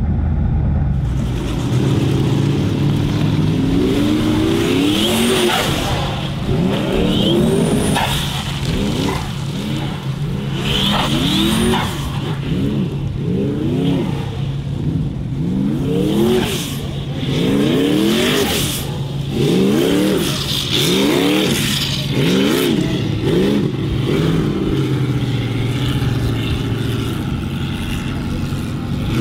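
Formula offroad hill-climb car's engine revving hard in repeated rising surges, about one every second and a half, the revs flaring up and dropping back again and again over a steady low drone.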